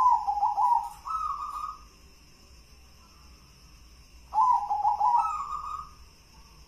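Zebra dove (perkutut) cooing twice, about four seconds apart. Each song is a quick stuttering run of notes followed by a longer, slightly higher held note.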